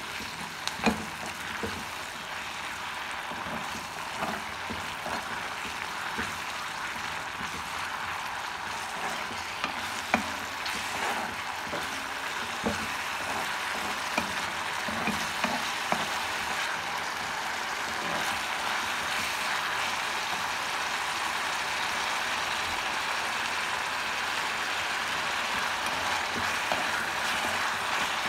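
Chopped onions and curry leaves sizzling in hot oil in a black wok, with a metal spoon scraping and clinking against the pan as they are stirred. The sizzle grows a little louder as it goes on, and the sharp clinks come mostly in the first half.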